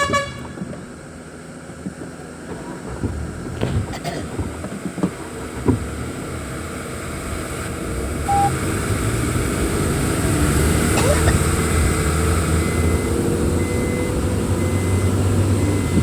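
Vehicle driving along a road. The engine and road noise grow steadily louder over the second half, with a brief beep about eight seconds in.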